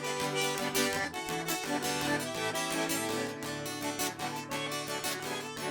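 Band playing the instrumental introduction of a música caipira song. A viola caipira picks quick, bright notes over a steady bass line.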